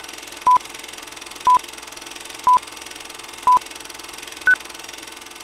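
Short electronic beeps once a second: four at the same pitch, then a fifth, higher-pitched one, the pattern of countdown or time-signal pips. A faint steady hum runs underneath.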